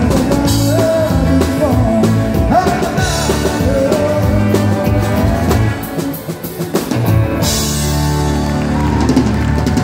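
Live country-western band: a man singing over acoustic guitar, fiddle, electric bass and drums. The singing stops about halfway through and the band plays on, with cymbals coming in strongly near the end.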